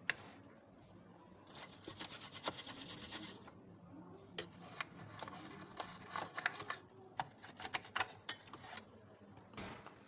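Dusting a computer's internal parts by hand with a dry brush: bouts of brushing and scratching rubs, mixed with many small sharp clicks of handling the parts.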